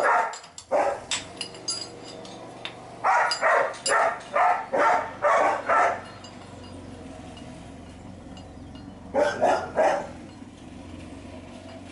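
A dog barking in three bouts: a few barks at the start, a run of about seven quick barks from about three to six seconds in, and four more about nine seconds in.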